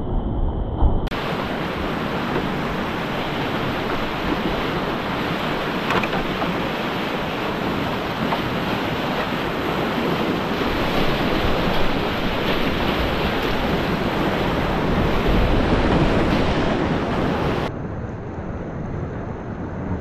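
Rushing whitewater of a river rapid heard up close, a steady dense rush of churning, splashing water. The sound turns abruptly brighter about a second in and duller again near the end.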